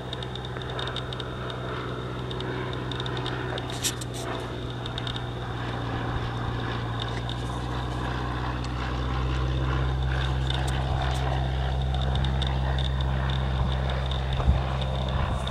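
Cessna 152 trainer flying past, its four-cylinder Lycoming piston engine and propeller making a steady low drone that grows a little louder about halfway through.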